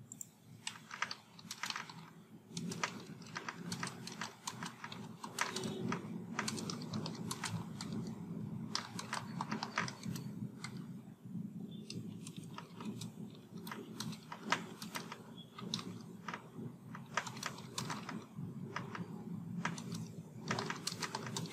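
Typing on a computer keyboard: irregular runs of key clicks with short pauses, over a faint steady low hum.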